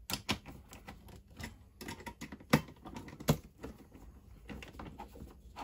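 Small irregular clicks and taps of a screwdriver and a small socket on a screwdriver handle working 4 mm machine screws and nuts tight against a plastic box, with two sharper clicks near the middle.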